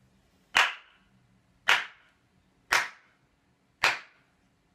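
Four slow, loud hand claps, about a second apart.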